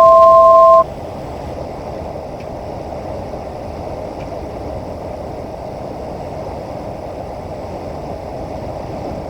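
Steady drone of a Cessna 208 Caravan's single PT6A turboprop in cruise-to-approach power on final approach, even and unchanging. It opens with a loud two-note electronic tone that lasts under a second.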